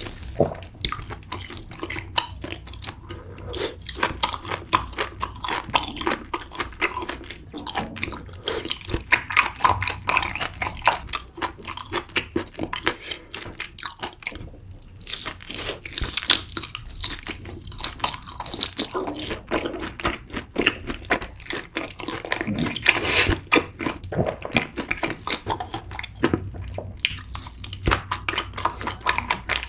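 Close-miked chewing and wet mouth sounds of someone eating: a dense, irregular stream of smacks and clicks.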